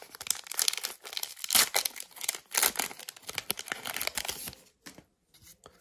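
Foil wrapper of a Pokémon trading card booster pack crinkling and tearing as it is opened and the stack of cards is pulled out, a run of irregular crackling rustles that dies away about a second before the end.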